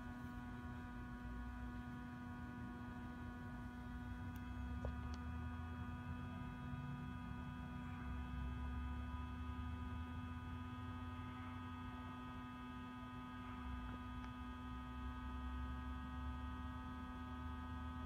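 A steady machine hum: one strong constant tone with a ladder of fainter, higher steady tones above it, over a low rumble that swells and fades every few seconds.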